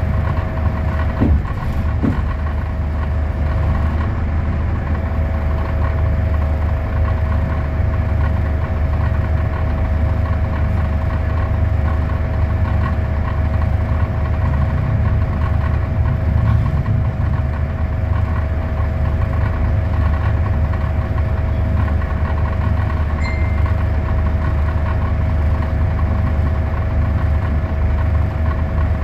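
Scania K320UA articulated bus heard from inside the cabin, its five-cylinder Scania DC09 diesel running at an even, steady pitch. A constant high whine lies over the low engine hum, and there are a couple of light clicks about two seconds in.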